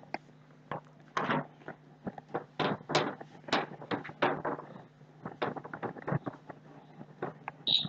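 A whiteboard being wiped clean by hand: a quick run of short, irregular rubbing strokes across the board's surface.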